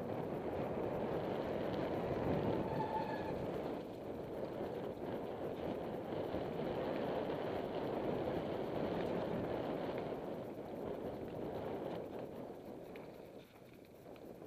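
Mountain bike tyres rolling fast over a dirt singletrack, with wind rushing over the microphone, a steady rushing noise that eases briefly near the end.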